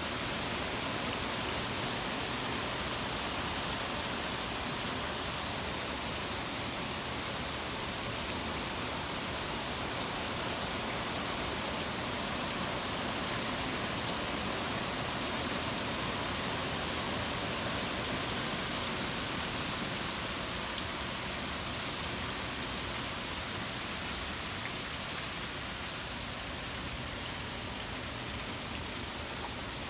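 Torrential rain pouring down steadily in a severe thunderstorm, a constant hiss of rain hitting the ground and pavement.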